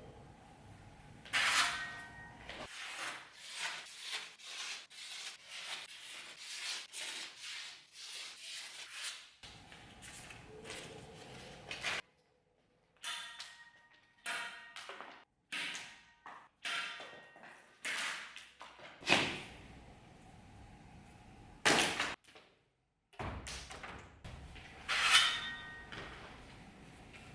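A heavy chopper knife striking and cutting in a series of sharp chops and knocks, several of them leaving a brief metallic ring, with short silent gaps between takes.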